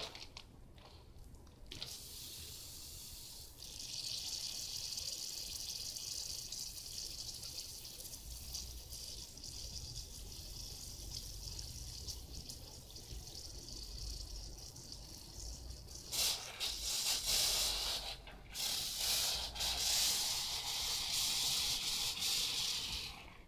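Water spraying from a hose-fed spray wand during a car rinse, a steady hiss. About two-thirds of the way in the spray gets louder and fuller, breaks off briefly a couple of times, then stops shortly before the end.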